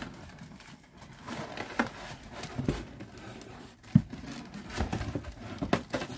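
Scattered hard plastic clicks and knocks from a white plastic citrus juicer as its reamer is handled and fitted onto the base. The sharpest knock comes about four seconds in.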